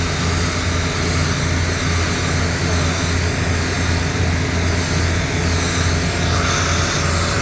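Air conditioner outdoor unit running: a steady fan rush over a constant low hum.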